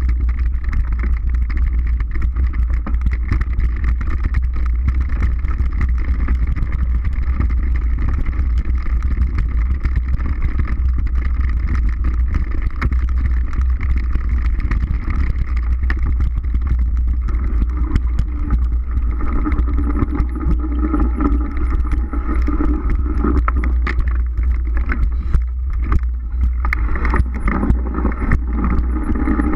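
Mountain bike riding fast on a dirt forest trail: steady wind rumble on the microphone with tyre noise and frequent rattling clicks from the bike, busier near the end.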